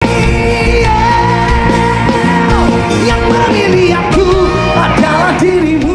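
Rock music with a singer holding long, sustained notes over a full band.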